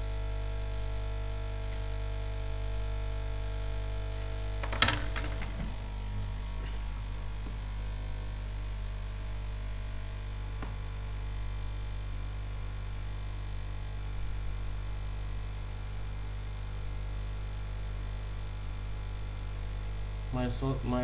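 Hot air rework station running with a steady electrical hum and buzz, the noise its owner calls a lot of noises and is replacing it for. About five seconds in, a sharp click, and a higher buzzing part of the sound stops while the low hum carries on.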